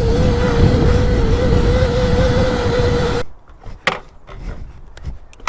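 Sur Ron electric dirt bike riding along: a steady motor whine over wind and tyre rumble, cutting off suddenly about three seconds in, then a few light knocks.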